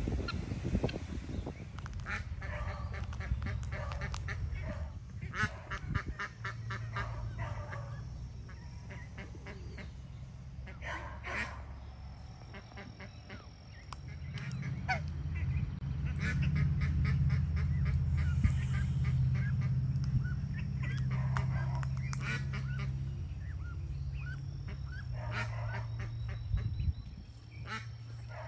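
Farmyard poultry calling in short, repeated honking calls in scattered bouts, over a low steady hum that grows louder in the middle.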